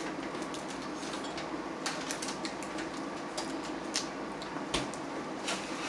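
Irregular sharp clicks and cracks of cooked blue crab and prawn shells being broken and peeled by hand, over a steady low hum.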